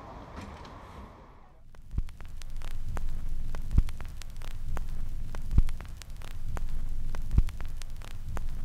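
Brief faint street ambience, then vinyl-record surface noise: a steady crackle of fine clicks and a low hum, with a low thump about every two seconds.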